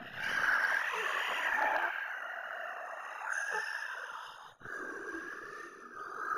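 Animal-like creature noises, continuous, with a brief break about four and a half seconds in.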